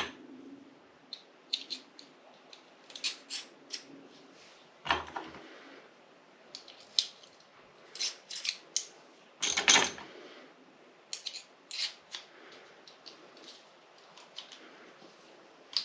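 Crossbow bolts being fed one at a time into a magazine stripper: a run of irregular light clicks and clacks, with louder knocks about five and ten seconds in.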